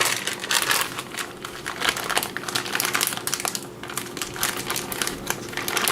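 Plastic deli-meat packaging crinkling and crackling in irregular bursts as it is handled and opened.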